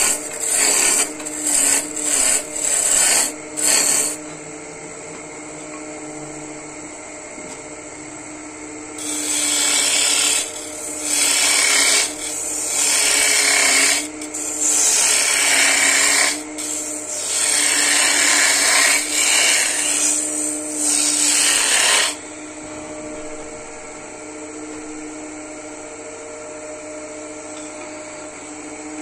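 Wood lathe running with a steady hum while a hand tool works the spinning wood: a run of short cuts at the start, longer passes through the middle, then the lathe running alone near the end.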